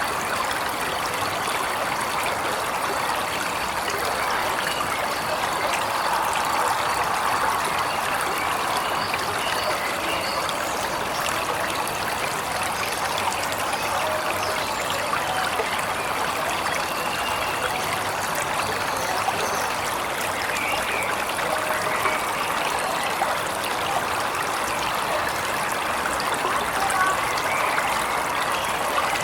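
Waterfall: a steady, even rush of falling and running water, with no pauses or changes.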